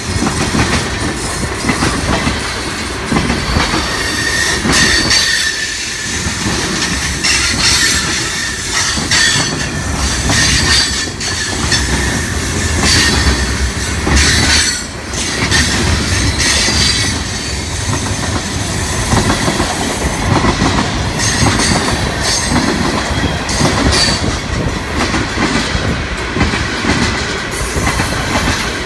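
Freight train's hopper cars rolling past close by, steel wheels clacking over the rail joints, with a thin high wheel squeal in the first few seconds.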